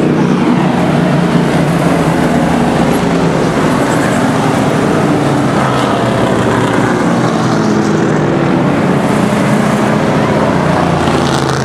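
Street stock race cars' engines running as the cars pass on the track, a loud, steady engine drone.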